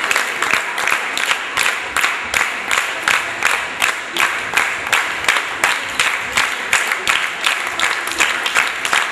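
Audience clapping together in a steady rhythm of about three claps a second.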